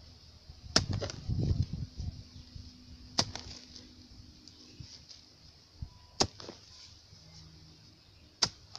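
A heavy hoe struck into sandy earth four times, one sharp blow about every two and a half seconds.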